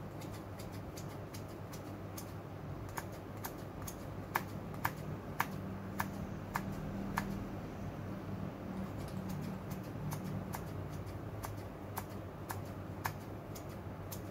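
Scissors snipping steamed carrots into small pieces on a plate, the blades clicking shut about twice a second, over a steady low hum.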